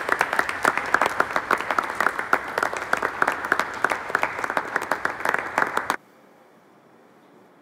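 Applause from a crowd in a hall, dense overlapping clapping that cuts off abruptly about six seconds in.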